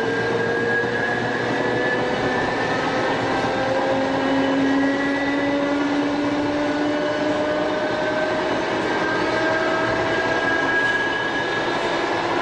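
Tobu 5700 series electric train running, heard from the front cab: the whine of its nose-suspended traction motors and gears rises slowly in pitch as the train gains speed, over steady running noise from wheels and track.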